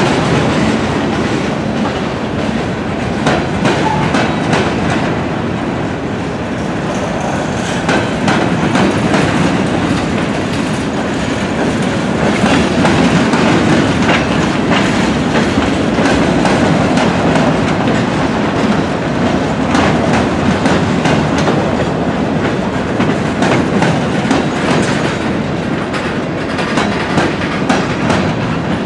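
Freight cars rolling past on the near track: a steady rumble of steel wheels on rail with repeated clicks and clacks as the wheels cross rail joints.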